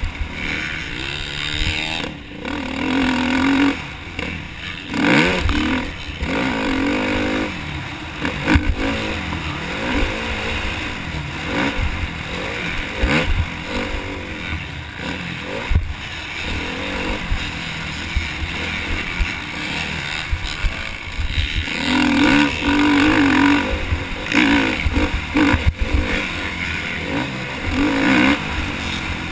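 Motocross bike engine revving hard and dropping off again and again as the rider accelerates, shifts and backs off around the track, heard from a helmet-mounted camera with wind rumbling on the microphone and knocks from the bike over bumps.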